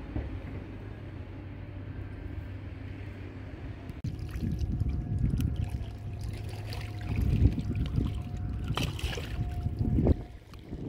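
Wind buffeting the microphone in irregular gusts. Before it, a steady low hum cuts off abruptly about four seconds in.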